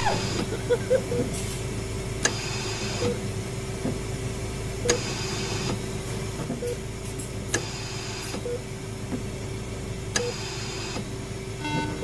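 Horror hospital ambience: a steady electrical hum under a mechanical whoosh that repeats about every two and a half seconds, four times, with scattered faint clicks between.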